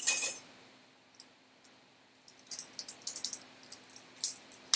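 Plastic cap on a bottle of teriyaki sauce being twisted and worked at by hand. It opens with a sharp crackle, then a couple of lone clicks, and from about halfway a quick run of clicking as the stiff cap is worked.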